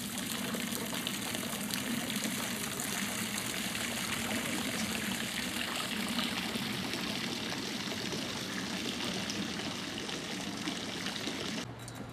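Steady rush of running water, which drops away abruptly near the end.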